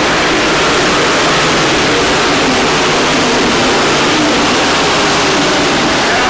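Engines of several race trucks running at speed around an oval track, heard as a loud, steady wash of engine noise.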